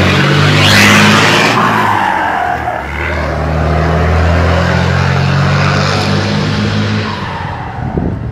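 Scania 112 HW diesel truck with a straight-through exhaust and Master Power turbo driving past and pulling away, its engine running under load. A loud rushing hiss about a second in falls in pitch as the truck passes. The engine fades out near the end as the truck moves off.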